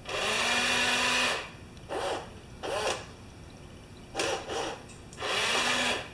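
Small electric motors of a repaired scale model fire truck running in five short bursts. The first and last are longest, about a second each, and the three between are shorter.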